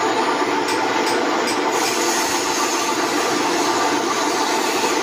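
Pillar drill press running steadily, its motor and drive giving a constant whirring hum while the bit is fed down into a workpiece clamped by hand on the table.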